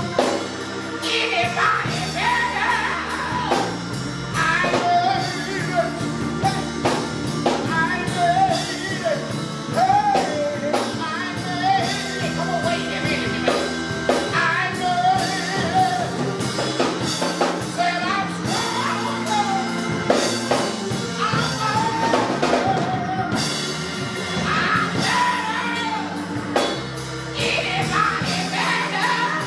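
A man singing a gospel song into a microphone over music with drums, his voice sliding between notes and holding long ones.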